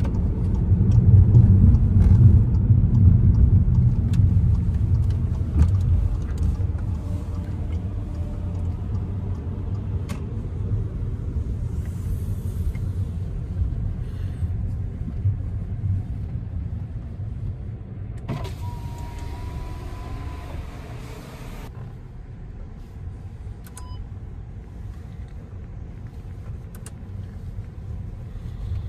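A car's engine and road noise heard from inside the cabin: a low rumble, loudest in the first few seconds and slowly fading as the car slows to a crawl. About eighteen seconds in, a hiss with a faint steady tone runs for about three seconds.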